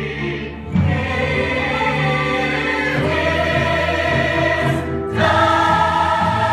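Stage-musical ensemble of adult and child voices singing together in long held notes, the chord growing fuller and louder about five seconds in.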